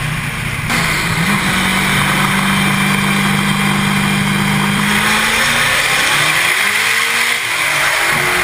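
Twin-turbocharged 442 cubic-inch small-block Chevy trophy-truck engine running loud on a chassis dyno. Its pitch holds steady, then climbs about six seconds in and drops away near the end.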